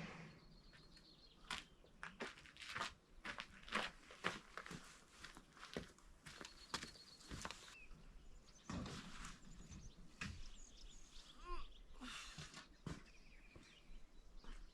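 Footsteps with irregular light knocks and scrapes, and birds chirping now and then in the background.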